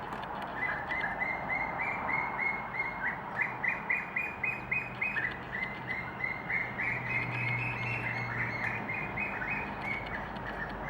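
Birds chirping: a long run of short, quickly repeated chirps, several a second, with a low steady hum joining in around the middle.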